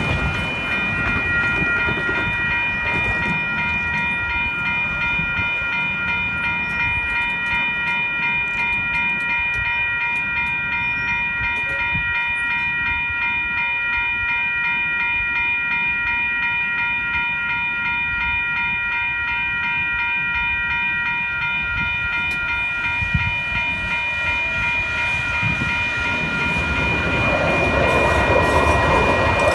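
Several electronic railroad crossing bells (WCH Type 2, NEG and General Signals Type 2) ringing together without pause. Near the end a two-car CAF light rail train rolls through the crossing, adding a rising rumble of wheels on the rails.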